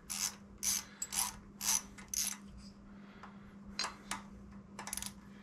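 Ratcheting driver clicking in short strokes, about two a second, then more sparsely, as a small T20 Torx screw is turned in. The screw is slow to snug up.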